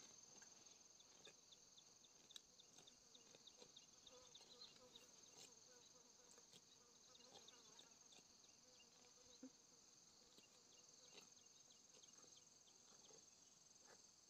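Faint insects in the forest: a steady high-pitched buzz with quick repeated chirps over it, and a few soft clicks.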